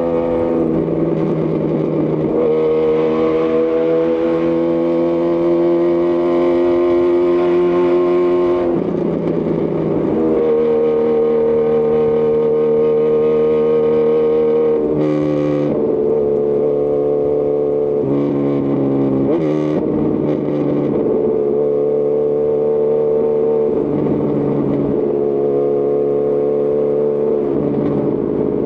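Honda CB1000R's inline-four engine through a Lextek CP1 full aftermarket exhaust under way, holding a steady note for several seconds at a time, with short breaks where the pitch shifts as the throttle is eased and reopened.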